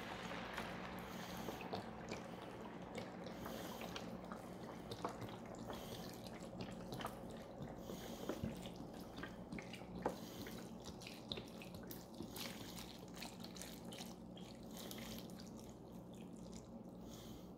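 Beef broth pouring in a thin stream from a carton onto chopped vegetables in a pot: a faint, steady trickle with small scattered drips.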